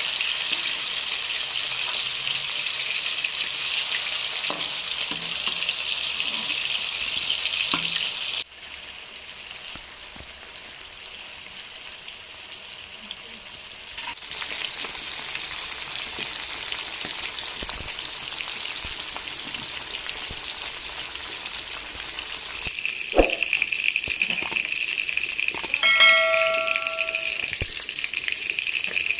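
Chicken frying in hot oil in a pan, sizzling steadily; the sizzle drops abruptly quieter about eight seconds in. Near the end, sharp knocks of stirring against the pan, and a brief ringing tone.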